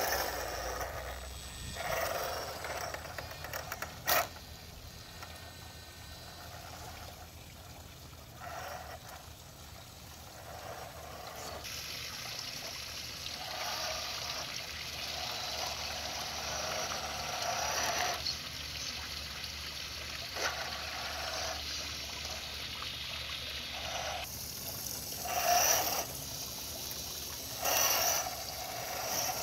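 Water trickling steadily from a small garden waterfall, with the electric drive of a scale RC truck whirring in short bursts as it crawls over gravel, loudest near the end. A single sharp click about four seconds in.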